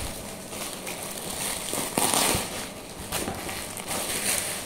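Clear plastic wrapper crinkling and rustling as it is pulled off a folder by hand, loudest about two seconds in.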